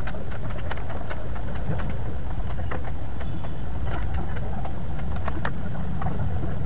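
A steady low rumble with scattered light plastic clicks and knocks as motorcycle helmets are handled, put on and taken off.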